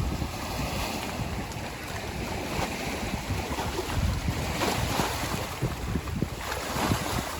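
Wind buffeting the microphone outdoors by a lake, an irregular gusty rumble with stronger gusts about four seconds in and near the end.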